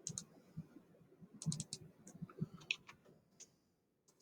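Irregular clicks of computer keyboard keys and a mouse, with a quick run of keystrokes about one and a half seconds in.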